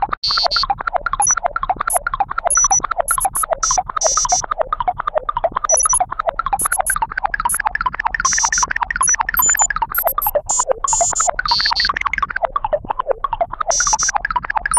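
Cartoon computer sound effect: a fast, unbroken stream of short electronic bleeps jumping up and down in pitch, about ten a second, with frequent higher-pitched chirps mixed in.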